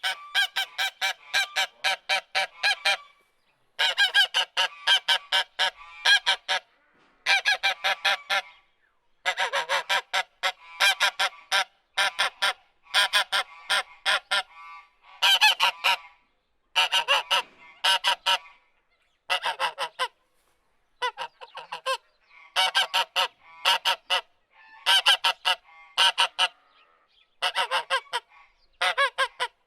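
Goose honking in repeated bouts of several quick, nasal honks. Each bout lasts a second or two, and short silent gaps separate them.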